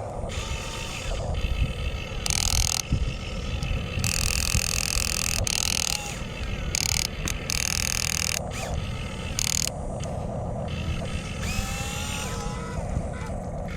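Small electric motors and gearboxes of radio-controlled construction models whirring in short starts and stops, over a steady low rumble.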